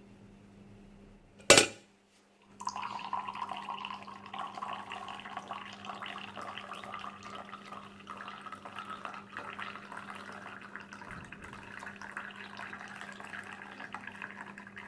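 Liquid pouring or running steadily for about twelve seconds, its pitch creeping slowly upward, after one sharp click about a second and a half in.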